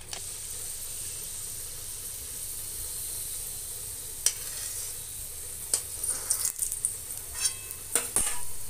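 Fenugreek seeds sizzling in hot mustard oil in a metal kadhai: a steady high hiss. From about halfway in, a steel spoon clicks and scrapes against the pan several times.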